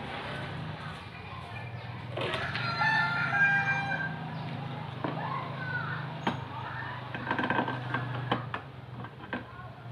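A rooster crowing, one long call about two to four seconds in and more calling after it, over a steady low hum. Near the end come a few light clicks and knocks from metal parts being handled.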